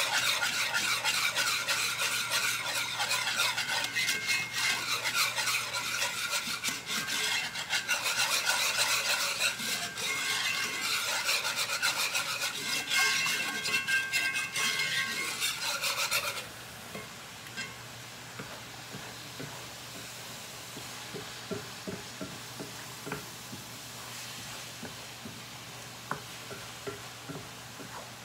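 Wire whisk scraping quickly and continuously around a cast iron skillet, stirring turkey gravy. About 16 seconds in the whisking stops suddenly, leaving a quieter steady sizzle with small scattered pops from the pans on the stove.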